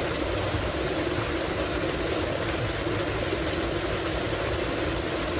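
Tubewell water gushing steadily from a wide pipe into a concrete tank, with the steady low hum of the pump running underneath.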